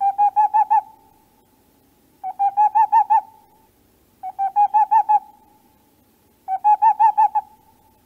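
Owl calling: a burst of about six or seven quick, evenly pitched hoots lasting about a second, given four times roughly two seconds apart.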